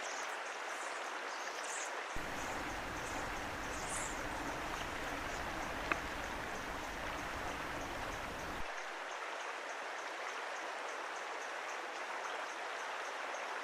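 River water rushing steadily, with a faint high chirp repeating evenly two or three times a second. A low rumble comes in about two seconds in and stops about nine seconds in, and a single click sounds near the middle.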